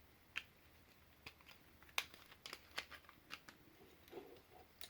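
Faint, scattered clicks and taps of small plastic parts being handled as a battery and ribbon cable are fitted back into an opened PS4 controller.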